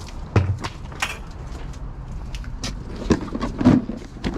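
Items being handled and rummaged through in storage containers: a series of irregular knocks and clatters, the loudest just under half a second in and again near the end.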